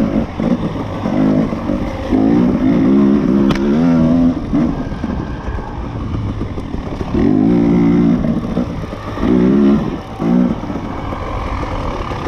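Dirt bike engine being ridden, revving up and easing off in repeated bursts, the longest from about two to four seconds in and again from about seven to eight and a half seconds in.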